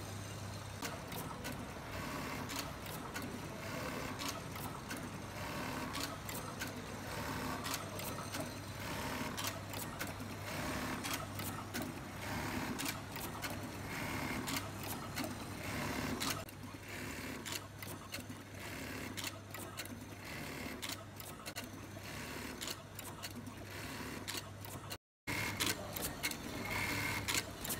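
FOXSEW automatic button feeder working with an industrial button sewing machine: the vibratory bowl feeder hums steadily, with frequent sharp clicks and clatter from the feeding mechanism and the machine stitching buttons on. The sound cuts out for an instant near the end.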